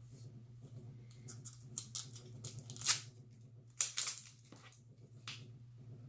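Safety seal being torn and peeled off a cosmetic bottle: a few short, sharp tearing and crinkling sounds, with the loudest around the middle.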